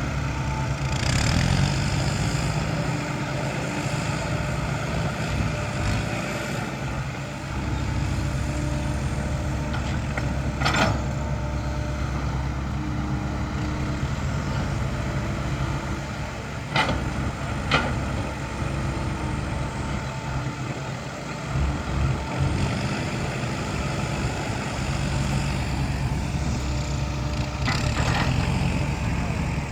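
Heavy diesel dump truck engine running steadily, with a few brief sharp sounds over it.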